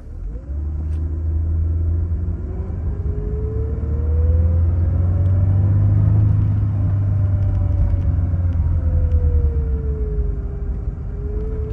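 Holden Adventra wagon's Alloytec V6 heard from inside the cabin while driving: a heavy low rumble, with an engine and drivetrain tone that rises in pitch over the first half, falls away, and starts rising again near the end as the car accelerates, eases off and accelerates again.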